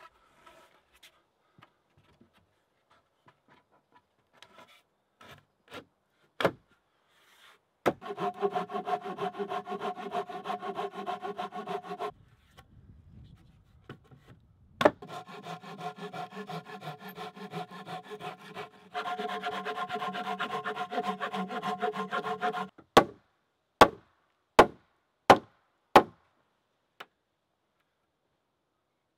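Wooden logs in a log-cabin wall being worked into place: long runs of rapid wood-on-wood grating with a steady tone, each a few seconds long, then five sharp wooden knocks about three-quarters of a second apart.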